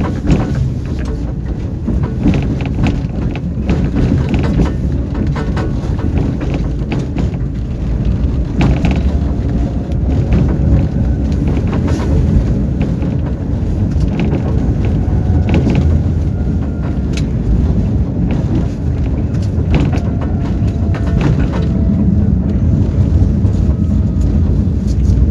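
Tram running between stops, heard from inside the car: a steady low rumble of wheels on rails, with scattered knocks and clicks and, now and then, a faint whine.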